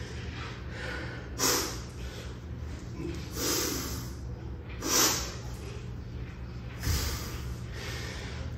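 Four forceful breaths, one every second and a half to two seconds, from a man doing one-arm kettlebell cleans, over a steady low hum. A dull thud comes with the last breath near the end.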